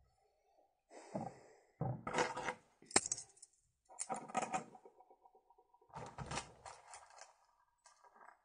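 Crinkling and rustling of a crumpled shiny wrapper being handled, in several irregular bursts with a sharp click about three seconds in.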